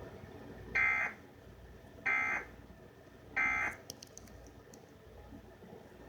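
Three short bursts of Emergency Alert System end-of-message data tones, the harsh digital chirp of the SAME "NNNN" code, each about a third of a second and spaced a little over a second apart, signalling the end of the alert. A steady hiss runs underneath, with a few faint clicks after the last burst.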